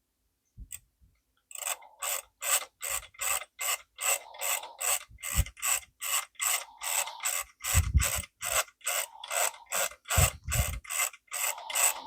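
Typewriter ribbon spool being wound along, its ratchet clicking evenly about three times a second, with a few dull knocks of handling. The ribbon is freshly inked and is winding up unevenly on one side of the spool.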